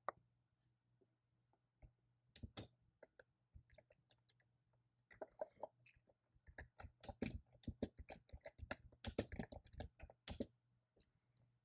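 Typing on a computer keyboard, faint keystroke clicks: a few scattered keys at first, then a quick run of typing in the second half.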